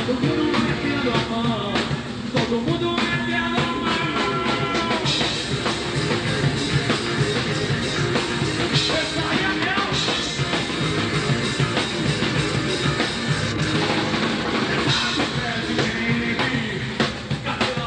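Rock band playing live: drum kit with a steady beat, electric guitar and bass, with a singing voice.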